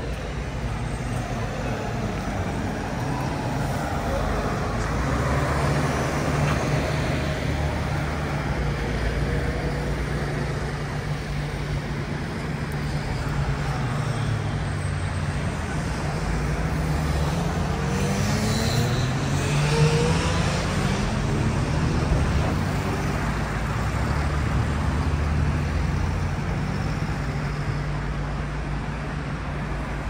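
Steady city road traffic: a continuous rumble of engines and tyres, with one vehicle accelerating past a little past the middle, its engine rising in pitch.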